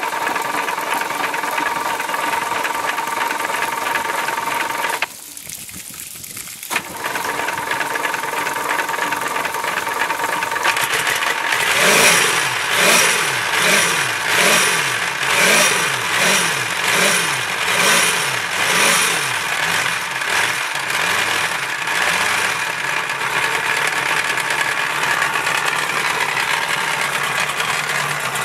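Boat engine running, being shifted between drive and reverse. About five seconds in it drops quiet for a second or two, then comes back. Later its sound rises and falls about once a second for several seconds before settling steady again.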